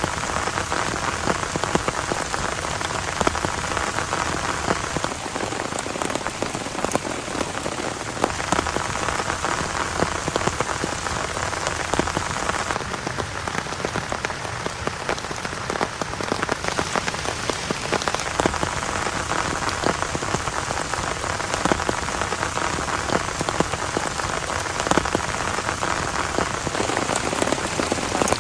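Heavy rain falling steadily, with countless drops striking a surface close by in a dense crackle of hits.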